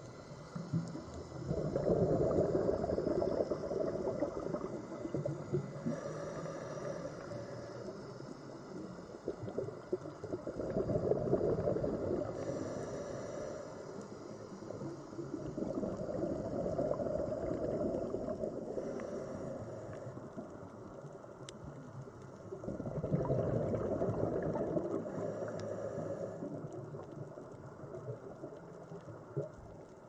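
Underwater ambience: bubbling, gurgling water that swells and fades in slow surges, four times, about every six to seven seconds, with a faint hiss between the surges.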